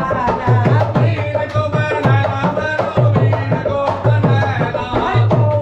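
Indian song music with a steady drum beat, about two strokes a second, and a singing voice over it.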